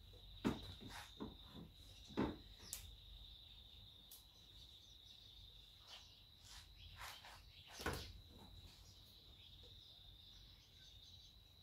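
Faint scattered clicks and knocks of a small TV speaker being twisted and pried out of its plastic mount in a rear projection TV cabinet, with sharper knocks about two seconds in and near eight seconds as the speaker breaks off. A faint steady high-pitched tone runs underneath.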